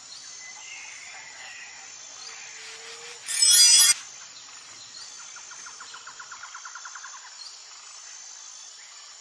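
Outdoor nature ambience of birds and insects chirping, with a fast trill of about a dozen chirps between six and seven seconds in. A loud, harsh burst under a second long cuts in about three and a half seconds in.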